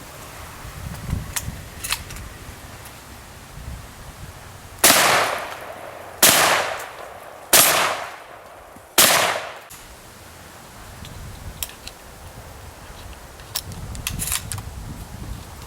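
Mossberg 930 12-gauge semi-automatic shotgun fired four times in quick succession, about a second and a half apart, each shot trailing off in echo.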